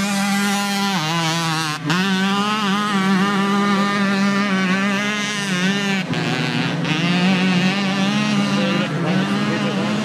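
Several two-stroke racing mopeds (Mofas) running at high revs, giving a loud steady buzz made of overlapping engine notes. The pitch wavers, dipping briefly twice early on and again about six seconds in.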